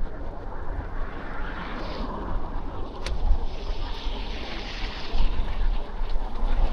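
Wind buffeting an action camera's microphone during a bike ride, as a low rumble over steady street traffic noise, with one sharp click about three seconds in.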